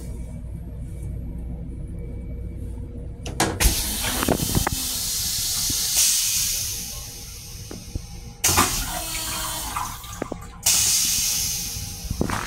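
An M7 railcar toilet with a stainless steel bowl flushing. A click, then a hissing rush of water swells and fades over a few seconds, followed by two more rushes that start suddenly and taper off, over a steady low rumble.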